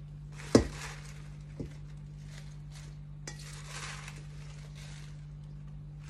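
A stainless steel mixing bowl knocks against the rim of a cooking pot, loudly once about half a second in and more lightly about a second later, with a small click later on. Between the knocks comes the rustling of fresh spinach leaves as they are pushed out of the bowl into the pot. A steady low hum runs underneath.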